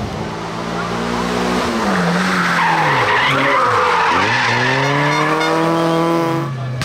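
Hill-climb competition car's engine at high revs, its pitch falling and dipping twice about three seconds in, then climbing again as it accelerates, with tyre squeal in the middle. The sound cuts off sharply near the end.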